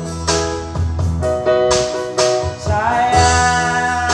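Instrumental music of an Indonesian love song between sung lines: a steady bass under held melody notes, with one note sliding up into a long held tone about three seconds in.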